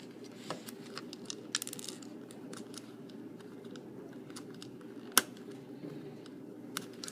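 Small plastic clicks and taps of building-block pieces being handled and pried apart, with one sharper click about five seconds in.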